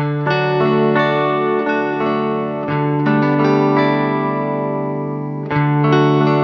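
Instrumental background music of sustained, effected plucked-string chords, with a new chord struck about five and a half seconds in.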